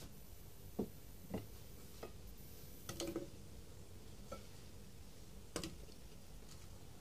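Light clicks and knocks of a metal utensil against a stainless steel pot, a handful of faint, irregular taps, as fried goja pastries are turned and coated in sugar syrup.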